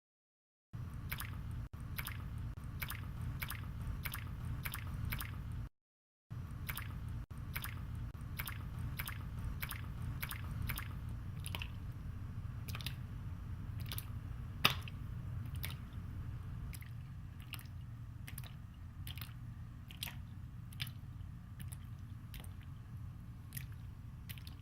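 Bundle of cable twisted and pulled between the hands, the layers rubbing against each other and against the palms to imitate a creaking rope: a steady run of creaks, about two a second, over a low rumble, breaking off briefly about six seconds in.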